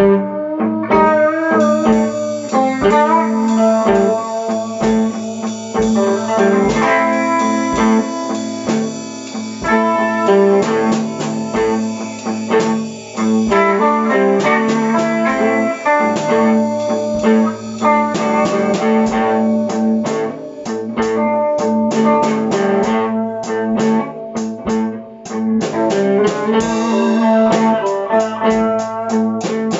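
Live blues played on electric guitar and drum kit: the guitar plays melodic lines over a steady drum beat, and the drumming gets busier from about halfway through.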